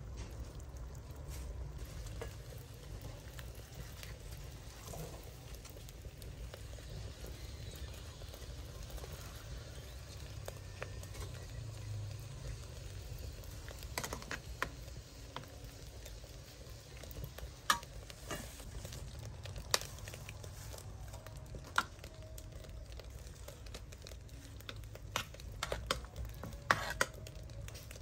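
Pot of shrimp and papaya soup simmering over a charcoal fire under a steady low rumble, with sharp clinks of a metal ladle against the pot scattered through the second half as the foam is skimmed.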